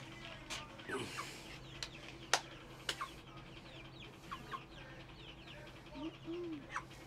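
Chickens clucking faintly, with many short high peeps, one low drawn-out cluck about six seconds in, and two sharp clicks between two and three seconds in.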